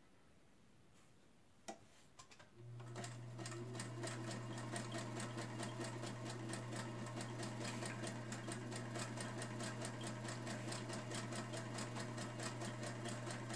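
A single click, then a Singer Featherweight sewing machine starts up and sews steadily for about ten seconds: its motor hums under a rapid, even clicking of the stitches until it stops. The needle is set with its flat side to the back, which makes the machine skip stitches.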